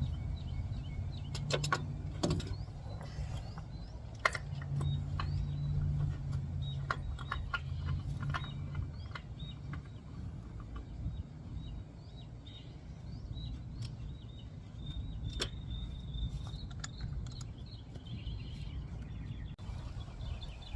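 Scattered light clicks and clinks of hand tools and oil-change parts being handled, over a steady low hum, with faint high chirps.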